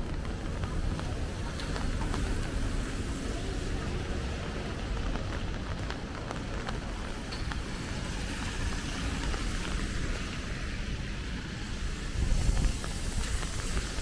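City street ambience in light rain: a steady wash of traffic and wet-street noise with a low rumble, swelling louder near the end.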